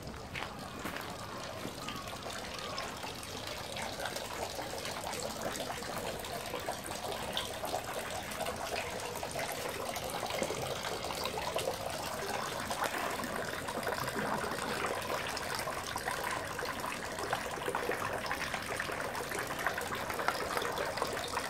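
Water running from a bamboo spout into the stone basin of a Shinto shrine's temizuya purification fountain: a steady splashing trickle that grows gradually louder.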